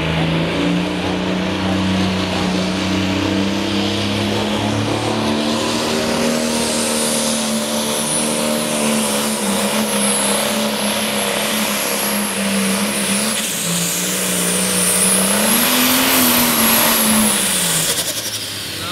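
Light Pro pulling tractor's engine running hard under load as it drags the weight-transfer sled: a steady drone, with a high whine above it from about six seconds in. Near the end the engine rises in pitch, then falls away as it lets off.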